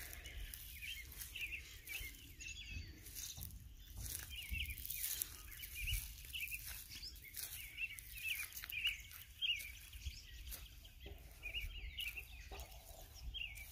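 Birds chirping and calling in many short repeated notes, with a low rumble underneath.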